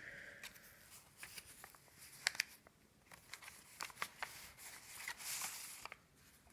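Faint paper handling: light ticks and rustles of the journal's book-page leaves and tucked paper pieces being moved and turned, with a softer brushing rustle about five seconds in.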